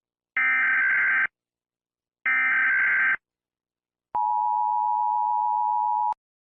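Emergency Alert System header: two harsh, buzzing digital data bursts of about a second each, then the EAS two-tone attention signal held steady for about two seconds before cutting off abruptly. This is the opening of a tornado warning broadcast.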